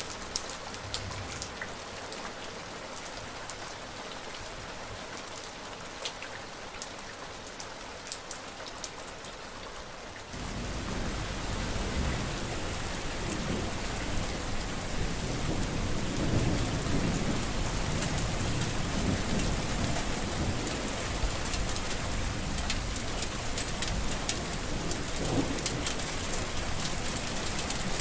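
Steady rain with many sharp ticks of single drops, changing abruptly about ten seconds in to heavier, louder rain with low, rolling rumbles of thunder.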